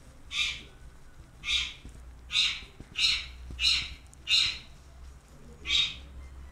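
Two-day-old puppy crying in short, high-pitched squeals, seven in about six seconds: a hungry newborn's cries while it roots for a teat to feed.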